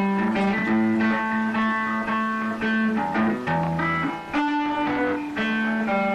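Instrumental background music led by guitar, with sustained notes over a low held bass note.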